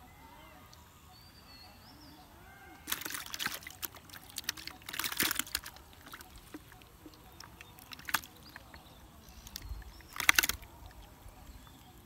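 Water splashing and sloshing in short bursts: one about three seconds in, a longer one around five seconds, a brief one near eight seconds and a last sharp one about ten seconds in.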